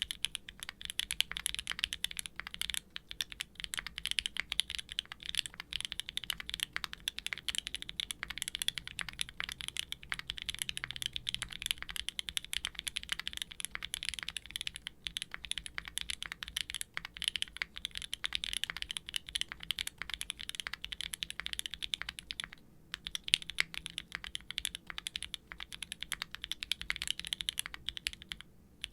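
Fast, continuous typing on a Qwertykeys Neo65 aluminium mechanical keyboard with a carbon fibre plate, no dampening foam, Gateron Green Tea Pro tactile switches and GMK doubleshot ABS keycaps: quiet, clacky keystrokes. The typing pauses briefly about two thirds of the way through.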